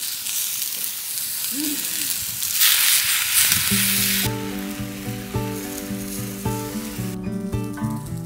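Food sizzling on a grill grate over hot charcoal, the hiss swelling a little before halfway and then fading. Music with a steady beat comes in around the middle.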